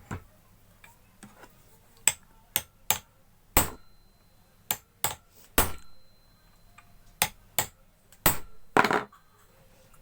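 Hammer blows on a steel centre punch against a water pump motor's shaft, about a dozen sharp metal-on-metal strikes at an uneven pace: staking the worn shaft so the loose impeller fits tight.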